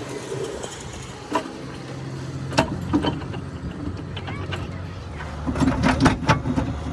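A steady engine hum, with sharp metallic clinks and knocks of work on the engine: a few single ones, then a quick cluster near the end.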